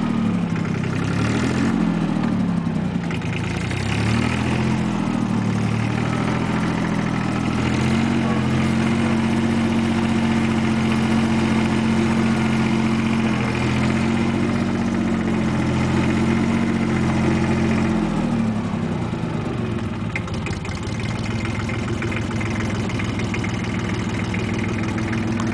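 Jinma JM-284 compact diesel tractor engine running while being driven. Its pitch rises and falls over the first few seconds, then holds steady, and about 18 seconds in it drops to a lower idle.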